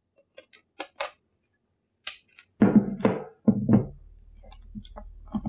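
Camera gear being handled on a wooden desk: a few light clicks, then a cluster of knocks about two and a half seconds in.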